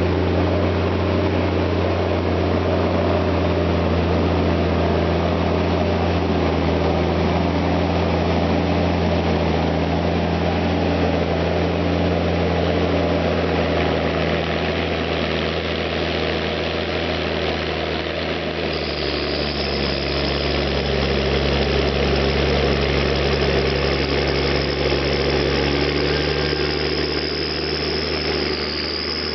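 John Deere 1110D forwarder's diesel engine running steadily at low revs. About two-thirds of the way through, the engine note drops slightly and a high steady whine joins it.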